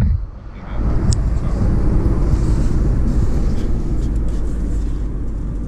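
Van running, heard from inside its bare, stripped-out rear cabin: a steady low engine and road rumble with a few light clicks and rattles.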